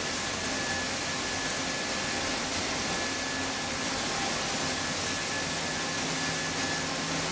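Steady rushing of churning seawater around an AAV7 amphibious assault vehicle in a flooded ship's well deck, with a few faint steady machinery tones in the background.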